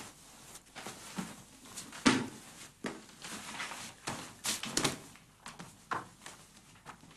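Scattered knocks and clatter of someone rummaging through drawers and cupboards, with a few sharper bumps about two seconds and five seconds in.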